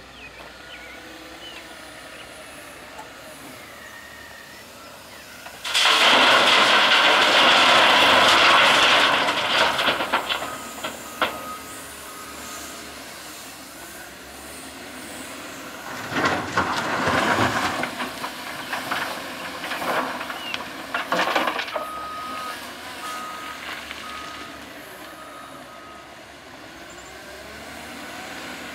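Diesel engines of a Cat 950K wheel loader and a Cat 730 articulated dump truck running, as the loader tips a bucket of rocks and soil into the truck bed. This makes a loud rattling crash that starts about six seconds in and lasts several seconds. A second spell of rough rock-and-dirt noise comes later, followed by a string of evenly spaced reverse-alarm beeps.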